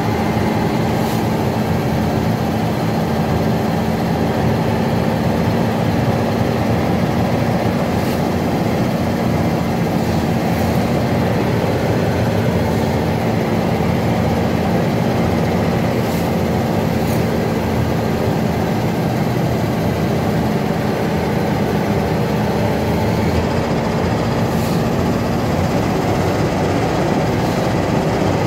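Inside the cab of a loaded truck: steady diesel engine and road noise as it descends a steep mountain road, with a low steady hum that drops away about 26 seconds in.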